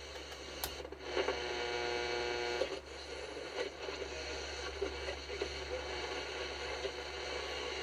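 Sony ICF-C111 clock radio's speaker giving AM-band static and hiss while the tuning dial is turned between stations. About a second in, a steady buzzing tone comes through for a second and a half, then the hiss carries on.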